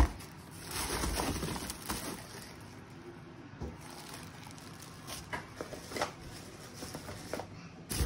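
Plastic packaging bags crinkling and rustling as vacuum cleaner parts are handled in a cardboard box, with a sharp knock right at the start and scattered small clicks after.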